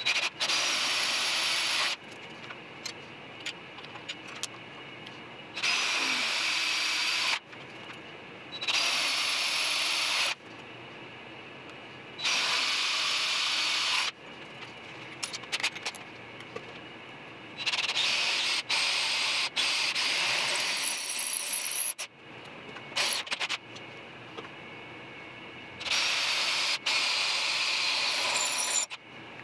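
Power drill boring into a steel plate, in about six runs of two to four seconds broken by short pauses. Clicks and taps come between the runs.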